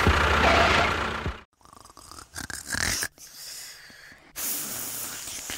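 A low, rhythmic engine chugging that stops about a second in, followed by quieter, choppy mechanical sounds broken by abrupt cuts.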